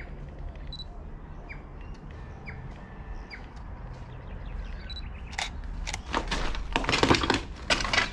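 DSLR camera shutter firing in a rapid run of clicks, several a second, starting about five and a half seconds in. Before that, faint bird chirps over a low steady rumble.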